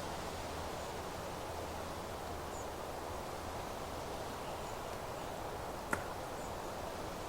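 Steady rustle of wind through a meadow's grass and leaves, with faint, high, short chirps of distant birds here and there. A single sharp click comes about six seconds in.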